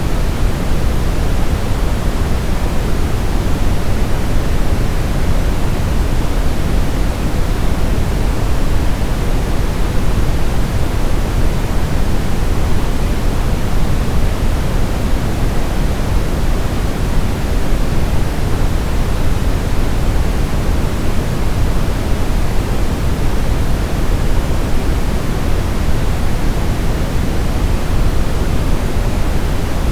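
Steady sleep-aid white noise: an even, unbroken hiss weighted toward the low end, like pink noise.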